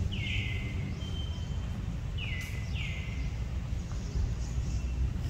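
Outdoor forest ambience: a steady low rumble with three short, high chirping calls, one near the start and two back to back in the middle, each falling in pitch.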